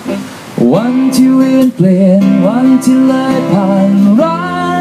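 A man singing a slow ballad live while strumming an acoustic guitar; the voice comes in about half a second in on a rising note and holds long sung notes over the chords.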